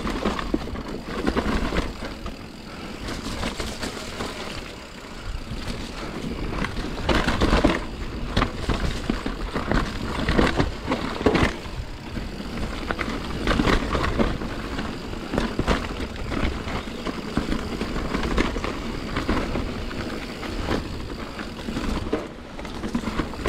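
Santa Cruz Nomad full-suspension mountain bike descending a wet dirt trail: tyres running over dirt and roots, with the frame, chain and suspension rattling and frequent sharp knocks over bumps.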